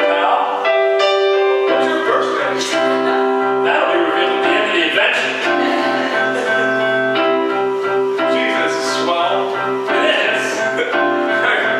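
Live electronic keyboard playing a slow piano-style accompaniment with sustained chords, a low bass line joining about two seconds in.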